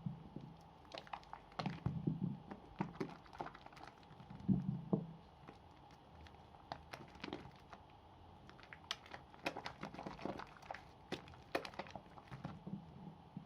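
Wet bars of soap being lathered by hand: scattered soft squelches and sticky clicks, with a few duller thumps in the first few seconds.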